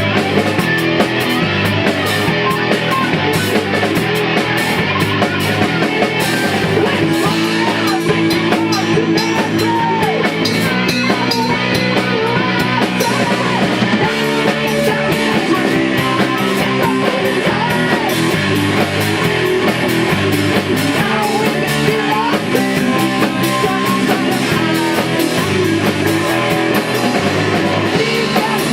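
Rock band playing a song in rehearsal: guitars over a drum kit, loud and continuous.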